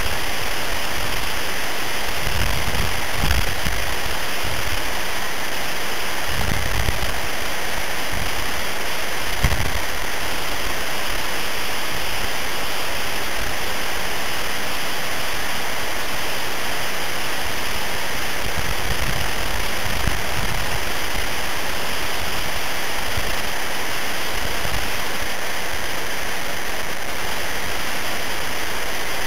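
Wind blowing across the camera microphone: a steady hiss with low buffeting swells at several moments.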